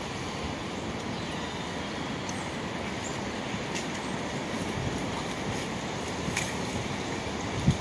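Steady outdoor background noise, a continuous low rumble with hiss, with a few faint high chirps. A single low thump comes near the end.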